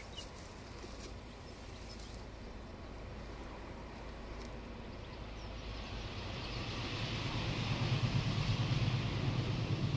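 Alco diesel-electric locomotive coming out of a tunnel towards the listener. Its engine's low, steady hum grows louder over the second half as it approaches.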